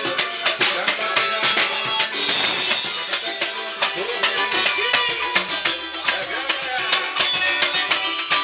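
Upbeat music with a quick, even beat of drums and shaken percussion over pitched instruments.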